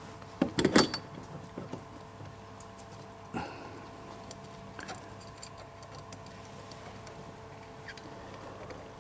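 Small metal clinks and taps as a split pin is worked through the hole in the end of a wheelbarrow wheel's axle: a cluster of clinks about half a second in, another clink about three and a half seconds in, then a few faint ticks.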